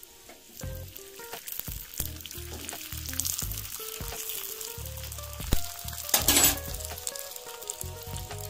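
Egg-roll flatbread frying in mustard oil on a hot tawa: a steady sizzle, with a brief louder burst of noise about six seconds in.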